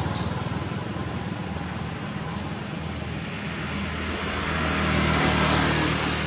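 Road traffic noise with low engine hum, swelling as a vehicle passes and loudest about five seconds in.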